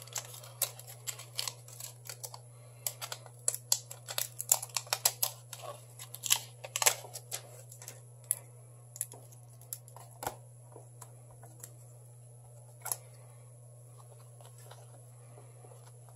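Small clicks, ticks and crinkles of adhesive tape being peeled and handled during a phone screen repair. They come thick and fast for about the first eight seconds, then thin out to a few isolated taps, over a steady low hum.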